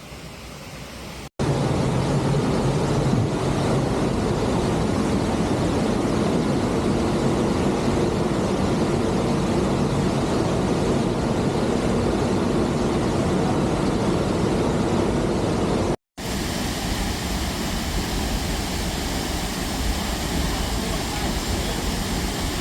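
Steady rushing of the Sgwd Gwladys waterfall, cut off sharply about a second in and again about sixteen seconds in, where the picture changes; the middle stretch is the loudest.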